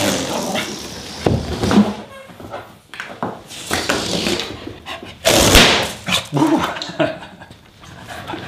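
Dog playing with a rubber balloon: short barks and whimpers mixed with irregular scuffling and rubbing noises as it jumps and grabs at the balloon.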